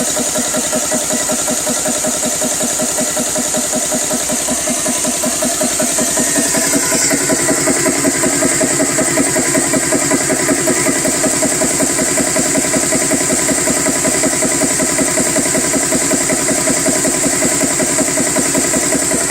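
GX CS3 portable high-pressure PCP compressor running under load while filling a .25 calibre PCP air rifle: a steady, rapid, even chugging, with a constant high whine over it.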